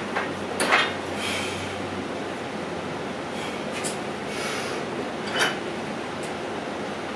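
A barbell bench press, heard as a handful of short forced breaths and light metal clinks from the bar and plates, the sharpest about a second in. Under them runs the steady hiss of an air conditioner.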